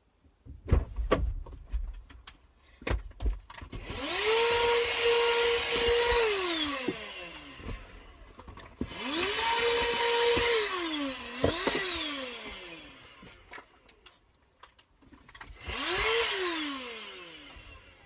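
A vacuum cleaner's motor switched on and off again and again: it whines up to speed, runs steadily for a couple of seconds, then winds down with a falling pitch. This happens three times, the last only briefly, with knocks and bumps before the first start.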